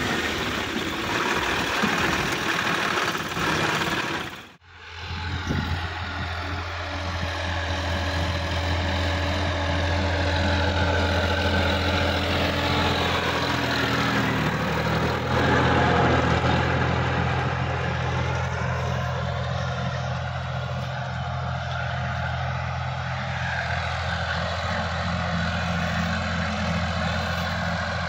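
Sonalika DI-50 RX tractor's diesel engine running. About four and a half seconds in, the sound drops out for a moment, then the engine runs on with a steady drone while the tractor works a rotary tiller, its pitch dropping a little about halfway through.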